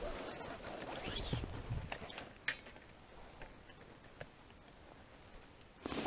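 Clothing and gear rustling as a hunter shifts and handles his kit, with a few soft knocks and clicks. It settles to faint quiet with occasional small ticks about two and a half seconds in, and a short rustle comes near the end.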